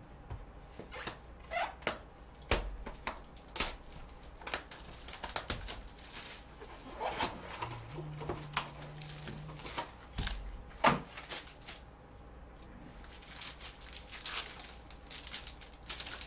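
Handling trading-card packs and cards: a string of light taps and clicks as cards and boxes are set down, then the crinkling of a foil card-pack wrapper being torn open near the end.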